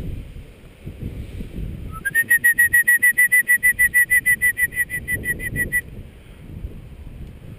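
A dog-training whistle blown as a rapid trill of short high pips, about nine a second, for nearly four seconds from about two seconds in, the usual recall signal to a hunting dog. Wind buffets the microphone before and after.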